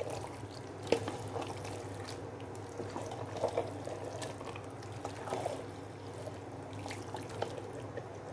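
Water splashing and dripping at a kitchen sink, with a few light knocks, over a steady low hum.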